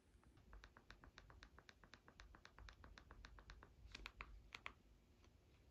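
Faint, quick clicking, about six clicks a second, then a few louder clicks about four seconds in: TV remote buttons pressed again and again while scrolling through a streaming menu.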